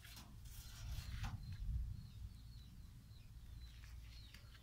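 Handling noise of an orchid clump being moved about on a plastic tarp, rustling for about the first second. After that, faint small-bird chirps repeat in the background over a low steady rumble.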